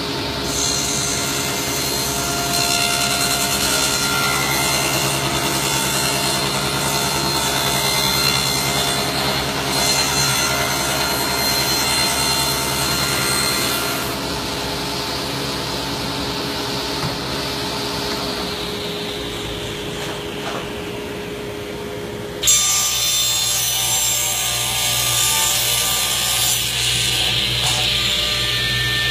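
Power saw running and cutting, a steady motor hum under the cutting noise. The sound shifts abruptly about halfway through and again about three-quarters of the way in.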